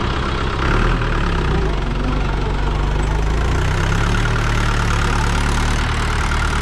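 Mahindra 475 DI tractor's four-cylinder diesel engine running steadily under load as it pulls a loaded trailer up a slope of loose earth.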